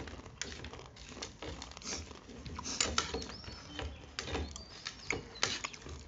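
Close-miked eating: chewing and mouth smacks, with a fork and spoon scraping and clinking on the plates, in short irregular clicks and crunches.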